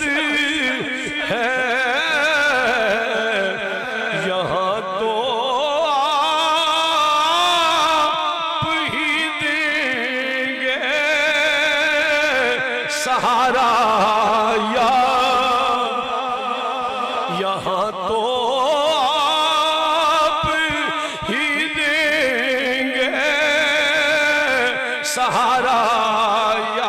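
Man singing a devotional naat through a microphone and PA system, in long held phrases with wavering, ornamented pitch and short breaths between them.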